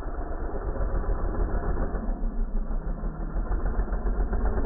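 Dirt bike engine running at low speed in first gear, pulling a little harder in the second half as the front wheel lifts into a slow wheelie.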